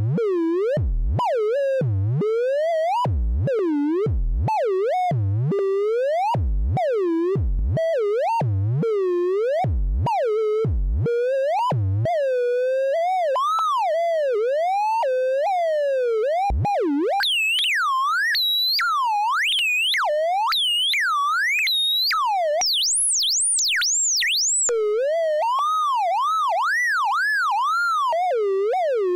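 Modular synthesizer oscillator tone whose pitch swoops continuously up and down, frequency-modulated by three sine-wave LFOs mixed and rectified through an Earwig rectifying mixer. For the first twelve seconds it dives to a low pitch about once a second, then it wobbles more quickly in a higher register.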